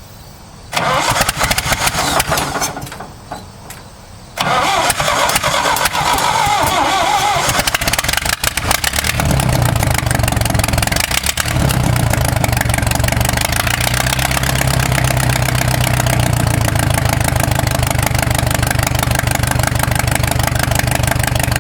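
John Deere 2010 tractor engine being cranked: a first burst that dies away, then it catches about four seconds in and runs, settling into a steady, even idle from about nine seconds in.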